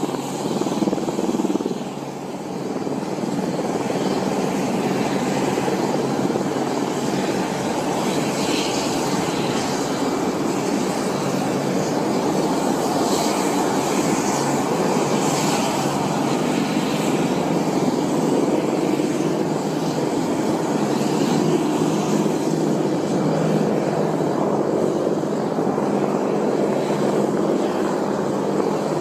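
Several AH-64 Apache attack helicopters lifting off and hovering close by, a steady, heavy noise of rotors and turbine engines with a brief dip about two seconds in.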